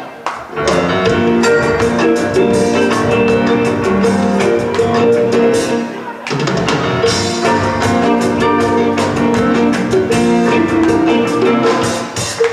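Live rock band playing an instrumental passage on electric guitars, keyboard and drum kit, with short breaks in the music just after the start and again about six seconds in.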